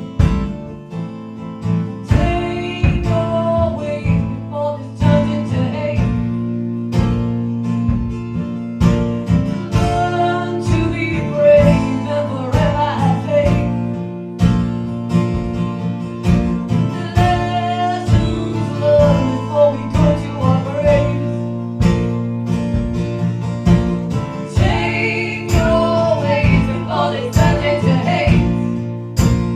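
Live acoustic folk-rock music: strummed acoustic guitar chords with a wavering melody line coming in and out in phrases over them.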